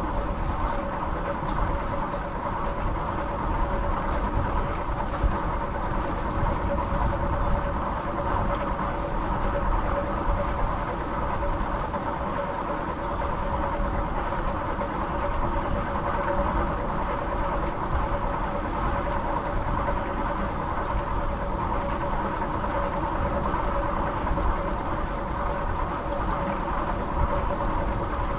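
Steady rolling-vehicle noise with a constant two-tone hum, unchanging throughout.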